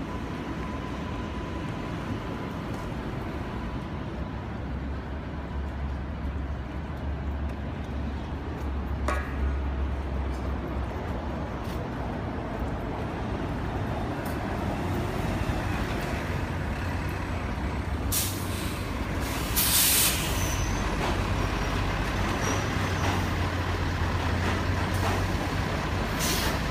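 City street traffic with a heavy vehicle, a bus or truck, running with a low engine rumble. Its air brakes let out sharp hisses twice about two-thirds of the way through and once more near the end.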